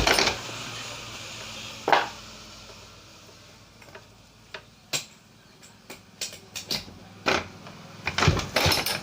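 Small hard objects clicking and knocking against each other and a work surface. There are two louder knocks near the start, then a faster run of clicks in the last few seconds, like small parts being handled.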